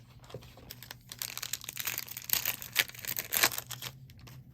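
Foil trading-card pack being torn open and crinkled, a dense run of crackling and rustling about a second in that lasts roughly three seconds.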